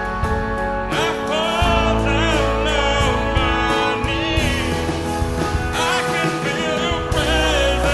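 Worship band playing a song, with a singer's voice coming in about a second in over sustained instruments and a steady bass.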